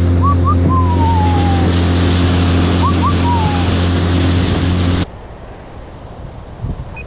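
Small boat's motor running at a steady pitch under heavy wind and water rush as the boat moves along, with a bird chirping twice over it; it all cuts off about five seconds in, leaving lighter wind noise.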